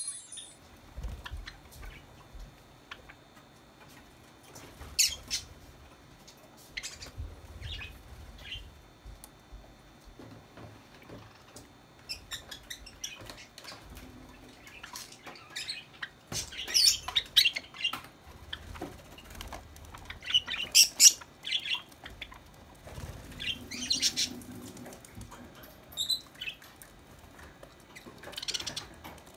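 Pet Java sparrows chirping: short, high calls in scattered bursts, busier in the second half, with now and then a quick run of repeated notes.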